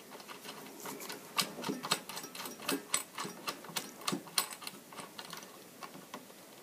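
Irregular light metal clicks and taps, several a second, as the arbor bolt and washer of a circular saw are put back on and threaded by hand against the blade.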